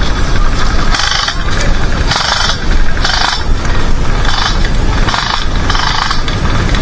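Airsoft guns firing about six short bursts, each about half a second long, at uneven intervals over a steady low rumble.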